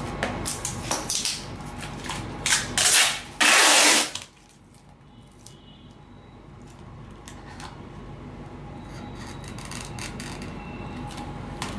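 Adhesive tape pulled off the roll for an aileron hinge: several short pulls, then one longer and loudest pull about three and a half seconds in, among small handling clicks on the foam wing.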